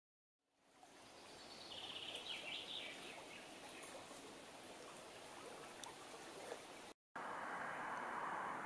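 Faint outdoor ambience fading in from silence: a steady hiss of background noise with a few short bird chirps about two seconds in. It cuts out briefly near seven seconds and returns as a louder, steadier rushing noise.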